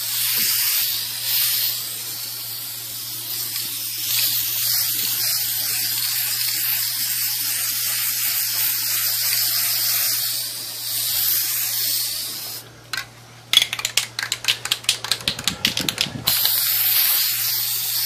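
Aerosol spray paint can hissing steadily as a light first coat is sprayed. About 12 seconds in, the spraying stops and a rapid rattling follows for about three seconds, then the hissing spray starts again.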